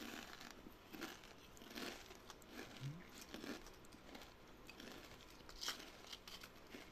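Watermelon being chewed: soft, wet crunching repeated about once a second.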